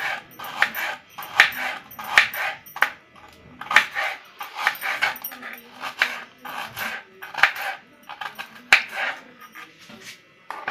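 Knife chopping a red onion on a cutting board: irregular sharp knife strikes, about one to two a second.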